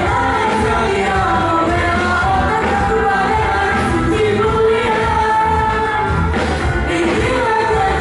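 A vocal group singing a song together over steady instrumental backing.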